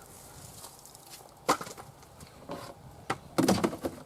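A few sharp knocks, then a short burst of clattering near the end: hand tools and parts being handled while working on a tractor's hydraulic drain and filter.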